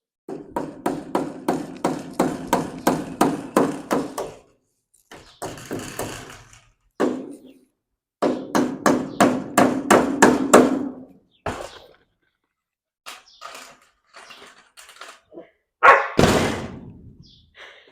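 Hammer driving nails into lumber: two runs of quick ringing strikes, about three a second, the first lasting about four seconds and the second about two and a half. Scattered lighter knocks follow, then one louder bang near the end.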